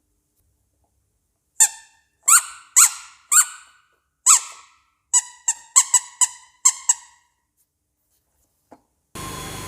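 A series of short, high squeaks with silence between them: five about half a second apart, then seven quicker ones. Near the end a steady noise sets in.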